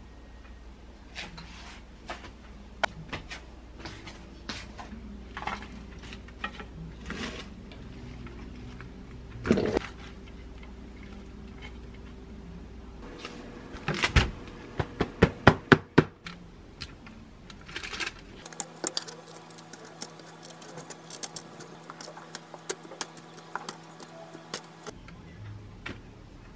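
Metal kitchen tongs clicking against a wire air-fryer basket and a ceramic plate while chicken wings are moved across, with scattered knocks. About halfway through comes a quick run of sharp clacks, then a stretch of dense light clicking.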